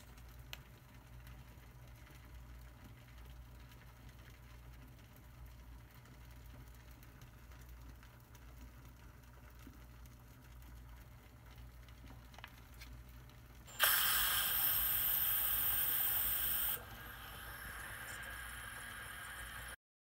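Water boiling in a stainless steel pressure-cooker pot with plastic hand-warmer packs in it. There is a faint low hum at first, then about fourteen seconds in a sudden, much louder hissing noise for about three seconds, easing to a softer steady hiss until the sound cuts off just before the end.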